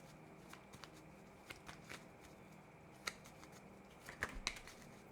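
Tarot cards being shuffled and handled, a scatter of soft flicks and snaps of card stock with a cluster around four seconds in.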